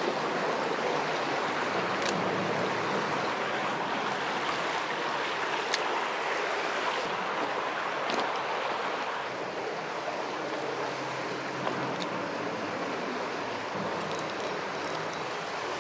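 Stream water rushing steadily, with a few faint ticks.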